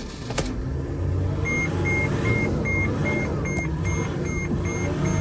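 Mercedes/Freightliner Sprinter 3.0 L V6 diesel engine running after a click and a rise in level, with the instrument cluster's warning chime beeping repeatedly at about three beeps a second from about a second and a half in. The chime is the dash warning for very low power steering fluid.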